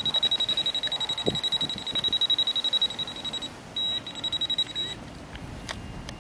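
Handheld metal-detecting pinpointer probe sounding a rapid, high-pitched pulsing beep as its tip is held against a buried metal object, the signal that metal is right at the tip. The beeping stops about three and a half seconds in, comes back briefly, and stops near five seconds.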